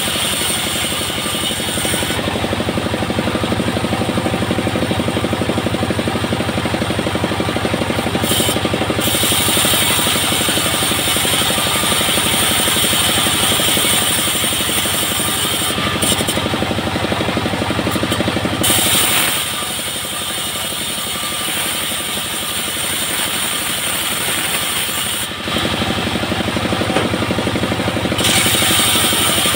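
Engine-driven bandsaw mill running steadily while coconut wood is fed through the blade, with a high cutting hiss over the engine. The cutting noise and overall loudness drop for several seconds about two-thirds through, then pick up again near the end.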